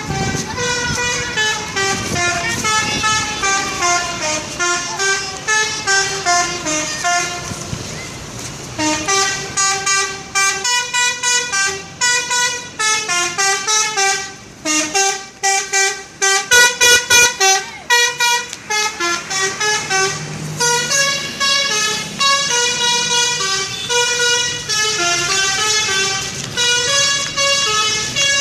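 Bus telolet horn, a multi-note air horn, playing tunes of stepping tones; from about nine seconds in the notes come short and fast in a choppy run.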